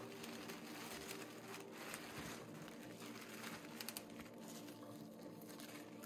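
Rustling and crinkling handling noise, coming in repeated soft surges, over quiet background music with held, steady notes.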